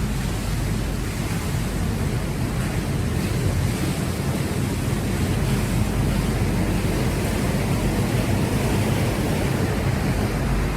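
Steady rushing water on a river rapids raft ride.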